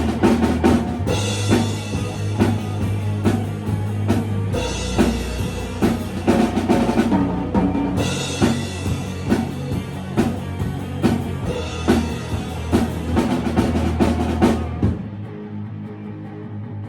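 A band playing a song, led by a drum kit with kick and snare over sustained bass notes. About fifteen seconds in, the drums and cymbals drop out and the playing goes quieter.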